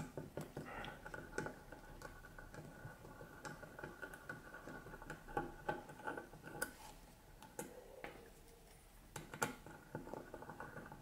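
Faint, irregular small ticks and clicks of a mini Phillips screwdriver working tiny screws out of the end of a headphone headband strap, with light handling of the metal frame. A faint steady high tone sits under much of it.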